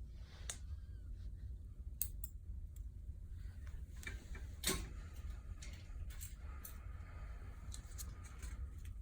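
Steel surgical instruments clicking during suturing: a handful of sharp clicks and snips a second or two apart, the loudest about halfway through, over a low steady hum.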